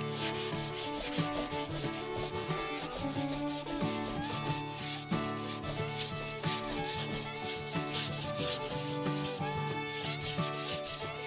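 Sandpaper rubbed by hand in repeated back-and-forth strokes along a glued split-bamboo rod blank, scouring off excess glue and the bamboo's enamel, over background music.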